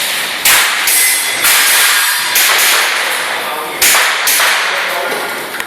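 Airsoft gas pistol firing during a timed practical-shooting stage: about five sharp shots at uneven spacing, each with a hissing tail.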